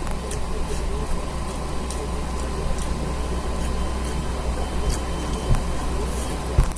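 Person eating curry and rice, with scattered small clicks and smacks of chewing and handling the food. Under them runs a steady low background rumble and hum, which is the loudest part.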